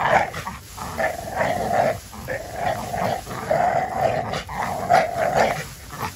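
Pit bull growling while tugging a rope with its jaws clamped on it, in rough stretches of about a second with short breaks between them.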